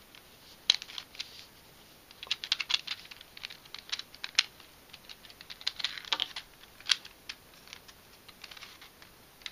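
Hard plastic pieces of a 3D-printed twisty puzzle clicking and clacking as its layers are turned by hand, in irregular clusters of sharp clicks.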